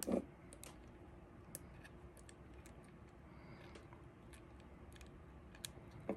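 A small metal split keyring being worked back onto a metal triangle link: a soft knock at the start, then sparse faint metallic clicks and ticks.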